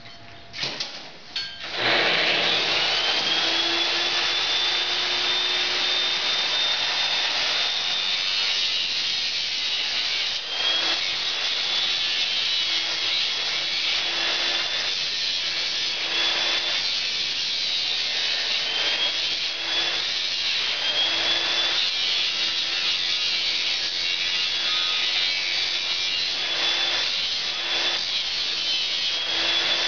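Truck-mounted grinder switched on about two seconds in, its high whine rising as the wheel spins up. A steel horseshoe is then held against the wheel, and the grinding rises and falls as the shoe is pressed on and eased off.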